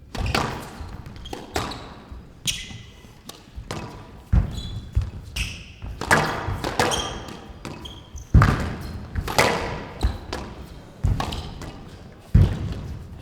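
Squash rally: the ball is struck hard by rackets and smacks off the court walls in a string of sharp hits, about one a second, each with a short ring in the court.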